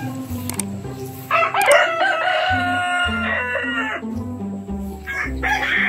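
Rooster crowing: one long crow of nearly three seconds beginning about a second in, and another crow starting near the end.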